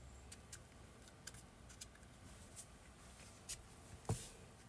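Faint scattered clicks of small 3D-printed plastic turbine parts being handled and fitted together, with one louder knock about four seconds in.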